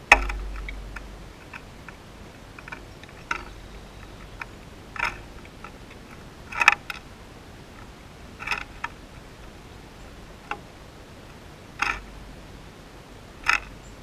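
A sparrow lands on the rim of a bird bath with a flutter of wings, giving one sharp knock, then pecks at seed on the rim. The pecking is a short crunching tap every second or two, about six times.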